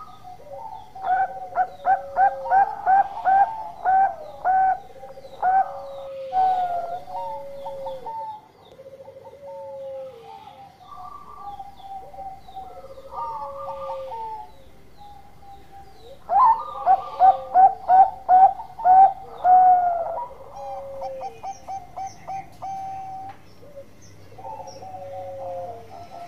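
Zebra dove (perkutut) singing: two loud bouts of quick staccato coos, about two notes a second, each bout running into longer notes, with softer cooing in between.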